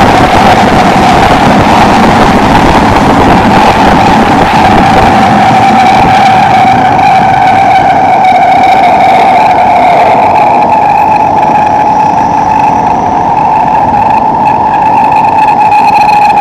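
Singapore MRT electric train running through a tunnel, heard from inside the car: loud rumble of wheels on rail under a strong, steady whine that climbs slightly in pitch. Higher whining tones join about six seconds in.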